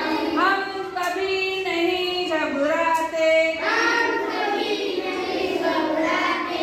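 A group of children singing a Hindi poem-song together, the sung lines running on without a break.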